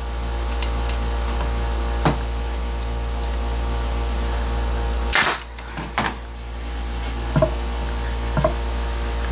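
A pneumatic brad nailer fires once about five seconds in, with a few lighter clicks and knocks of wooden parts being handled, over a steady mechanical hum in the shop.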